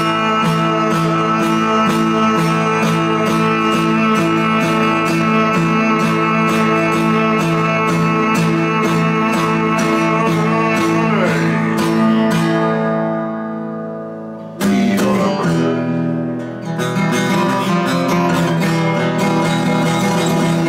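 Acoustic guitar strummed steadily in an instrumental break. About twelve seconds in, the last chord is left to ring and fade, and the strumming starts again about two seconds later.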